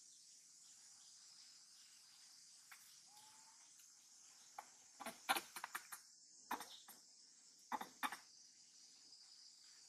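A steady, high-pitched insect chorus, broken by a cluster of sharp clicks and knocks about five to six seconds in and a few more near the end.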